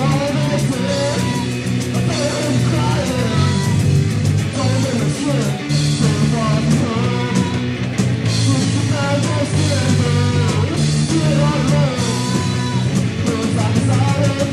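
Punk rock band playing loud and live: distorted electric guitar and pounding drums with cymbals under a singer's voice.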